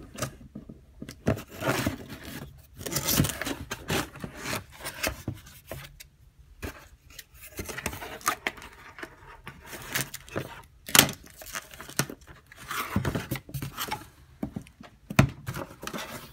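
Cardboard shipping box being opened by hand with scissors: blades cutting the packing tape and cardboard flaps scraping and rustling, with a few sharp knocks.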